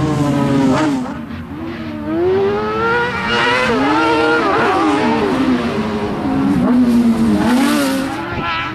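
Autocross buggies racing on a dirt track, their engines revved hard. The engine pitch climbs and drops again and again as the cars accelerate and lift off.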